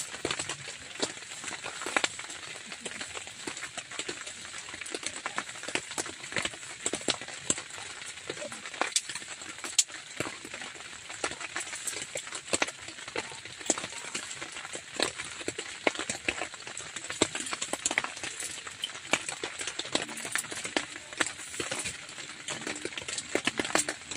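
Light drizzle falling on a nylon tent, heard from inside: a dense, irregular patter of sharp drop ticks over a steady hiss.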